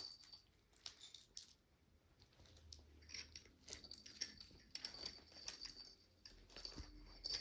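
Faint, irregular light clinking and jingling of small metal pieces, more frequent after about two seconds in.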